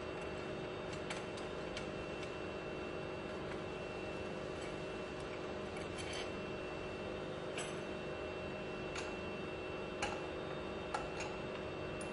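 Steady workshop hum with occasional light metallic clicks and taps from hand tools on the pump's tie rods and casing as it is dismantled.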